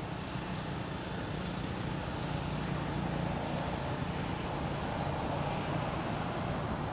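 A steady low rumble with an even hiss over it, unchanging throughout, like a distant engine or traffic.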